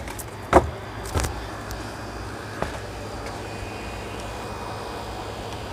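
Wind rumbling on a phone microphone, with a few sharp thumps, the loudest about half a second in.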